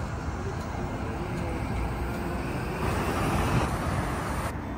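Street traffic: a steady hum of passing road vehicles with a low engine drone, one vehicle going by louder about three seconds in.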